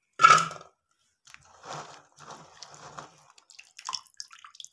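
Handfuls of wet, cut broad bean pods dropped into an aluminium pot: a loud clatter just after the start, then crunching and rustling as they are pushed in by hand, with light ticks near the end.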